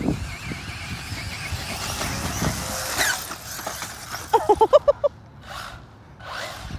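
Radio-controlled off-road buggies running on loose dirt: motor whine rising and falling with the throttle over tyre scrabble. About two-thirds through, a quick run of about six short high-pitched yelps cuts in.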